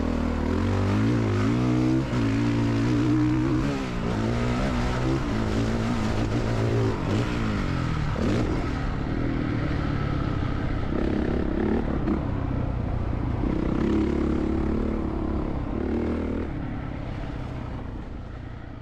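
Honda CRF450R's single-cylinder four-stroke engine being ridden hard, revving up and down again and again as the throttle opens and closes, with steadier stretches in between. It fades out near the end.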